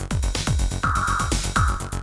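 Electronic dance music with a steady, fast kick-drum beat under synthesizer tones.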